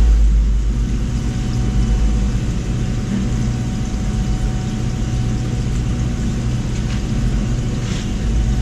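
Large fishing party boat's engine idling, a steady low rumble.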